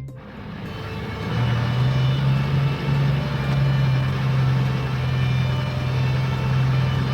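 A vehicle engine running steadily: a low, even hum with some noise that swells up over the first second or so and then holds.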